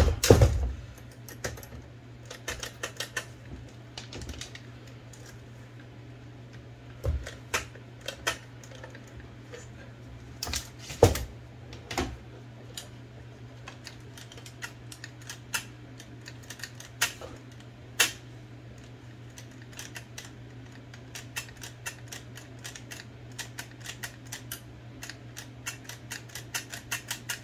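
Olivetti Linea 98 electric typewriter being worked and tested: scattered sharp clicks and knocks from its keys and carriage mechanism, quickening into a rapid run of clicks near the end, over the steady low hum of its running motor. The typewriter is being tried out while its carriage power brake is checked, which isn't yet working as it should.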